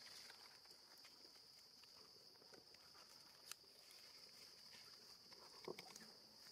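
Near silence: faint outdoor ambience with a steady high-pitched drone, a single sharp click about three and a half seconds in, and a brief faint rustle-like sound near the end.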